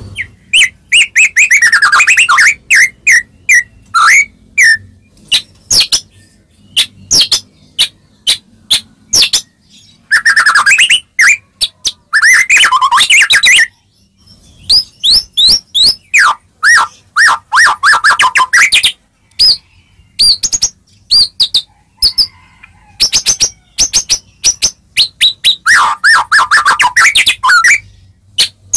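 White-rumped shama (murai batu) singing loudly: a fast run of sharp ticks and high whistled notes, broken every few seconds by longer rich warbled phrases. It is a 'pancingan' lure song, played to set a silent shama answering.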